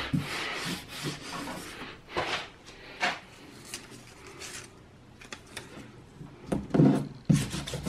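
Hand brushing drill dust off a plywood board with a soft rustle, then short handling knocks and rubs. Near the end, masking tape is pulled off its roll in a few loud rasping strips and pressed down onto the epoxy-coated plywood.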